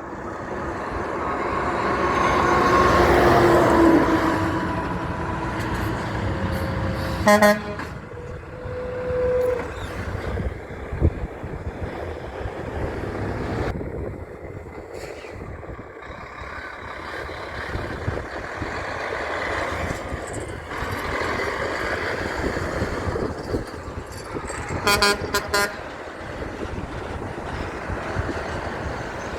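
Big trucks passing on a road. A truck horn gives a short blast about a quarter of the way in, and a quick series of short toots comes near the end.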